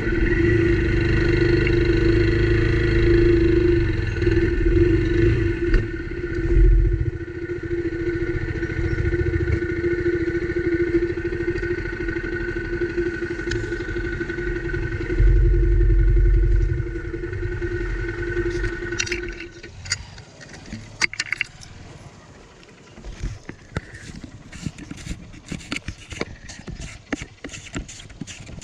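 Motorcycle engine running as the bike slows and stands idling, then switched off about two-thirds of the way through. Scattered clicks and rattles follow in the quiet.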